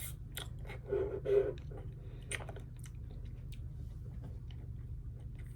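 Close-miked chewing and wet mouth smacks of a person eating, with small clicks coming more sparsely after the first few seconds.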